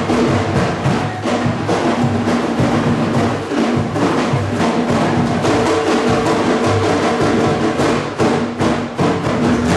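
Percussion-heavy music: drums and woodblock-like strikes keeping a fast, steady beat over held tones.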